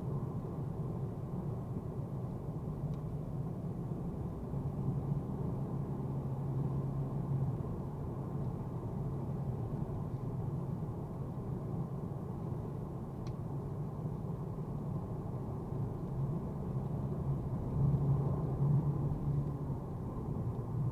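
Mercedes-AMG A35's turbocharged 2.0-litre four-cylinder and road noise heard from inside the car while driving: a steady, muffled low drone whose engine hum swells briefly twice, around five seconds in and again near the end. A single faint click about two-thirds of the way through.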